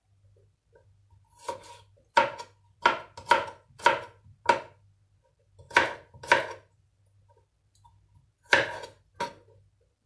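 Kitchen knife slicing garlic cloves on a wooden cutting board: about ten sharp knocks of the blade on the board, in uneven groups.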